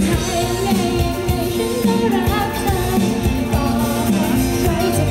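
A woman singing a Thai pop song live into a microphone over a full backing band, heard through the stage PA; her sung line wavers with vibrato throughout.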